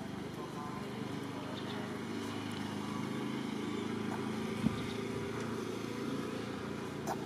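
Steady low drone of a running engine, with one short click about four and a half seconds in.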